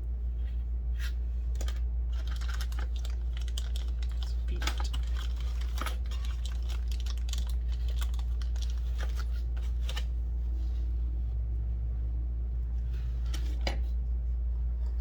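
Rustling and clicking of PC case parts and their packaging being handled and unpacked, busiest from about two seconds in until ten seconds in and again briefly near the end. A steady low hum runs underneath.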